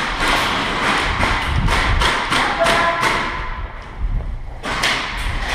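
Rapid, irregular knocks and clicks, several a second, from airsoft guns firing and BBs striking the arena's walls and barricades, with a short lull about three and a half seconds in.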